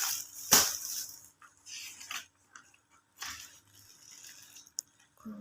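Packaging being handled during an unboxing: irregular crinkles and rustles, with a sharp crackle about half a second in.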